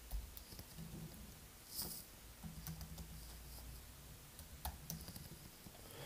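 Faint, scattered keystrokes on a computer keyboard as a command is typed.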